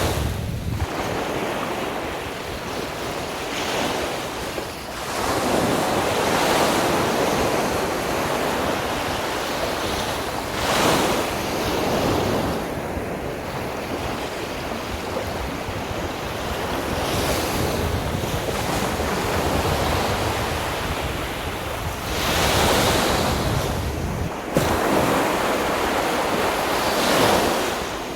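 Sea waves breaking and washing on a beach, surging in loud swells every few seconds, with wind buffeting the microphone.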